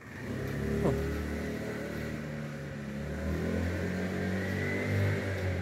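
A passing vehicle's engine running and revving, its pitch stepping up and down, loudest from about three seconds in.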